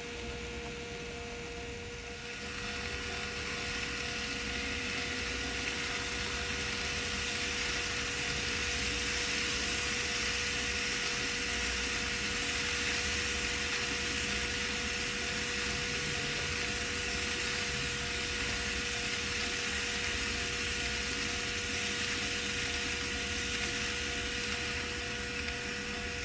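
N gauge model train running along the layout's track: a steady whirring of the small motor and wheels on rail that builds about two seconds in, holds, and fades near the end, over a constant electrical hum.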